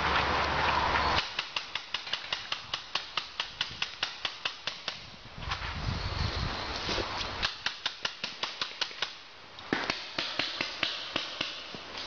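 Paintball markers firing in rapid strings of pops, about five shots a second, with short pauses between strings. A rushing noise fills the first second.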